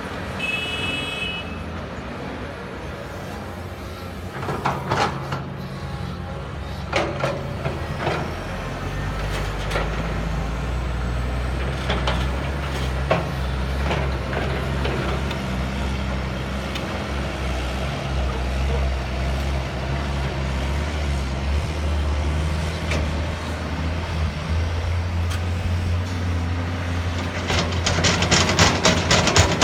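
CAT 320D excavator's diesel engine working under load, with heavy clanks and knocks from the bucket as it digs and dumps soil. A short beep sounds at the start, and a fast rhythmic clatter comes in near the end.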